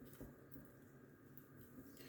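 Near silence: room tone with a few faint, short clicks, one about a quarter second in.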